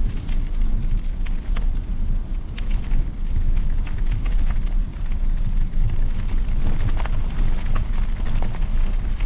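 Wind buffeting the microphone of a camera riding on a moving bicycle: a steady low rumble, with scattered light clicks and rattles over it.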